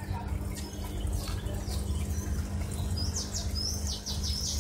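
A small bird chirping, a quick run of high chirps in the last second and a half, over a steady low hum.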